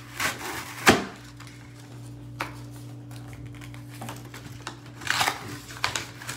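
Trading-card packaging being torn open and handled, with rustling and crinkling in short bursts and a sharp tap about a second in. A faint steady hum runs underneath.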